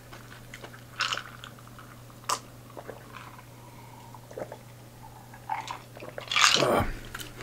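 A man gulping down an iced highball from a glass: a few separate swallows, then a louder, longer sound near the end as the glass comes down.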